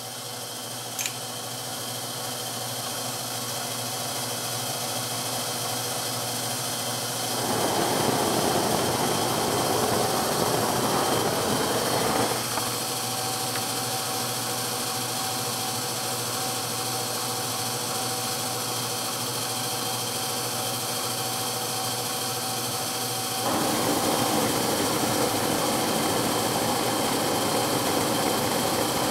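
Oxy-fuel torch flame hissing steadily as it heats a spot on a bent drive shaft to straighten it. The hiss gets louder about seven seconds in, eases back a few seconds later, and steps up again near the end as the flame is turned up or moved.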